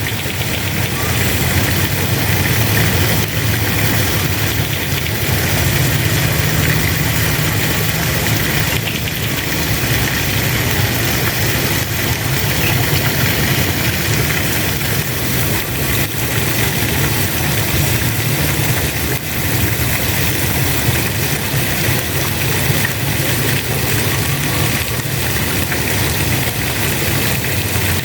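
Steady hiss of spraying water over a constant low engine hum.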